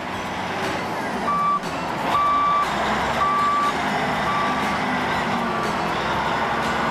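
Back-up alarm of a wheel loader beeping about once a second, about five beeps that grow fainter, over the steady running of the machine's diesel engine.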